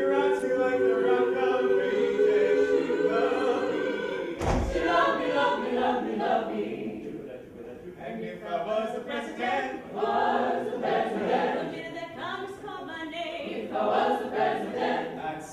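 Coed a cappella group singing, several voices in harmony with no instruments. A single low thump comes about four and a half seconds in.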